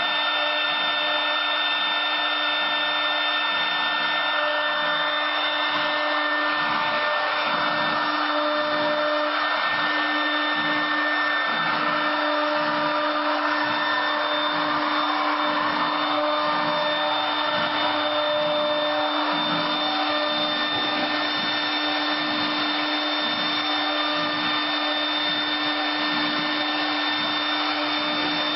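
Wood CNC router's spindle running with a steady whine while the bit cuts wood on the rotary axis, with a low pulse repeating about once or twice a second.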